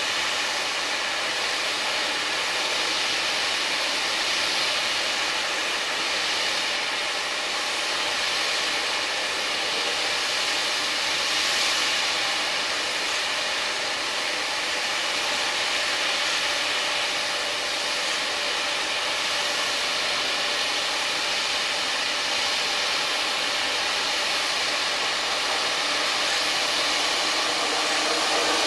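Steady hiss of rain falling. In the last couple of seconds an approaching electric locomotive and its passenger train grow louder.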